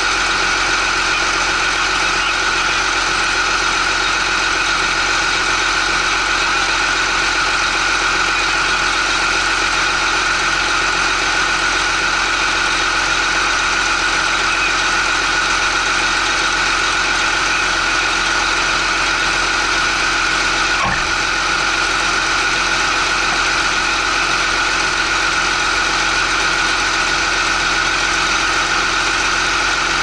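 Case IH Magnum 310 tractor's diesel engine idling steadily, heard close to its vertical exhaust stack.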